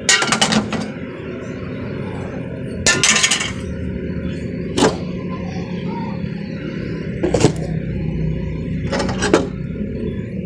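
Metal parts of a gas stove clattering and clinking as it is handled and taken apart, in about five short bursts a second or two apart.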